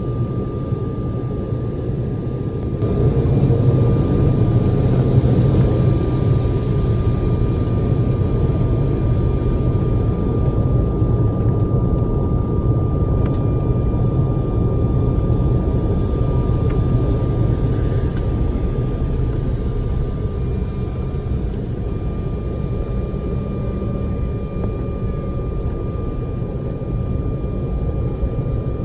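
Cabin noise of an Embraer E190 taxiing, heard from inside the cabin: its two GE CF34-10E turbofans run at low power as a steady rumble with a thin steady whine on top. The rumble grows louder about three seconds in.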